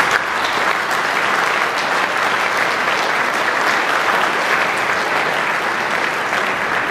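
Audience applauding, a steady dense clapping from a large crowd.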